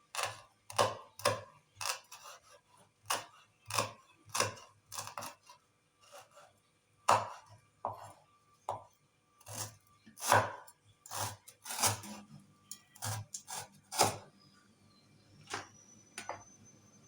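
Knife chopping food on a cutting board: irregular sharp knocks, about one or two a second, that stop about 14 seconds in, with a couple of lighter knocks after.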